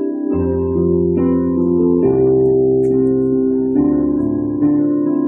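Yamaha electronic keyboard playing slow sustained chords, with bass notes coming in shortly after the start and the chord changing every second or two.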